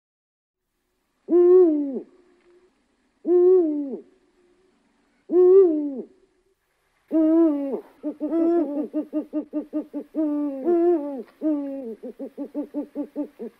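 Eurasian eagle-owl calling: three separate hoots about two seconds apart, each dropping in pitch at the end. From about halfway, longer calls overlap with fast runs of short notes, about five a second.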